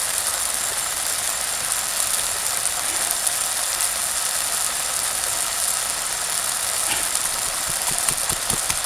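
Steady high-pitched chirring of insects in the grass. Near the end, dull repeated knocks begin as a pestle pounds chilies in a stone mortar.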